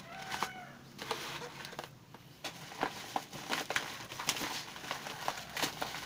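Paper-packed 1 kg bags of rice and a cardboard shipping box being handled, the paper rustling and crinkling with many short crackles.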